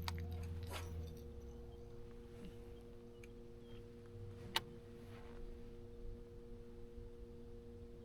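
A steady, faint electric hum made of a few fixed tones, with a deeper hum underneath that stops about a second in. A single sharp click comes about four and a half seconds in.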